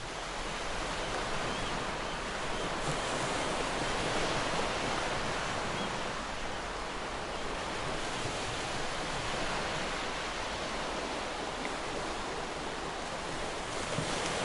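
Steady rushing of ocean surf, an unbroken wash of wave noise that swells and eases slightly.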